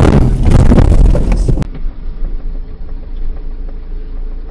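Loud, rough vehicle noise with a few knocks cuts off abruptly about one and a half seconds in, giving way to the steady low hum of a car driving.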